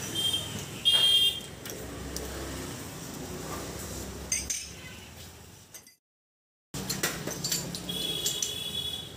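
Glass clinking and ringing, from marble-stoppered soda bottles and glasses being handled, over street market noise. The sound cuts out completely for about a second around two-thirds of the way through.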